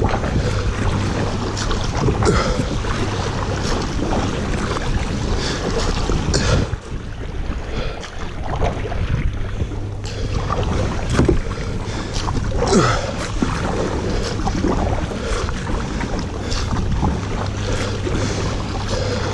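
Kayak paddle dipping and splashing with each stroke at an uneven pace, water washing along the plastic hull, and wind rumbling on the microphone.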